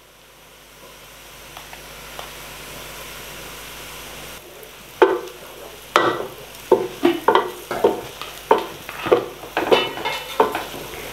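Hot oil sizzling as coconut powder fries with browned onions in a large metal pot, the hiss growing over the first few seconds. From about five seconds in, a wooden spoon stirs and scrapes the pot bottom at about two strokes a second.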